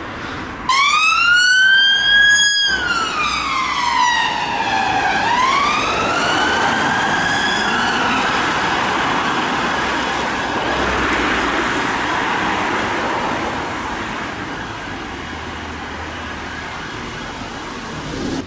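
Emergency vehicle siren sounding a slow wail that starts loud about a second in, rises, falls and rises again, then gives way after about eight seconds to a steady rush of road noise.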